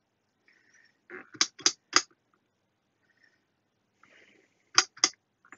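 Rotary switch of a decade resistance box clicking through its detent positions, each click one step up in resistance. A quick run of three or four clicks about a second in, then two more near the end.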